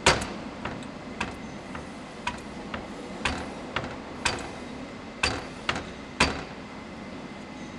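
Hydraulic bottle jack being pumped by its handle, clicking with each stroke, about two clicks a second with the stronger ones about a second apart, and a sharper click at the very start. The jack is being stroked with its release valve open and oil fill plug out, to bleed trapped air from it.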